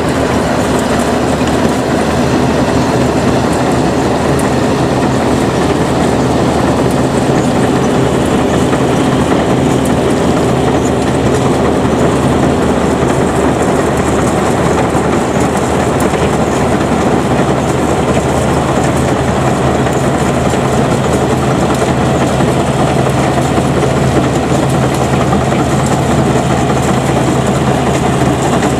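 Rice combine harvester's engine and threshing mechanism running steadily as it cuts standing rice.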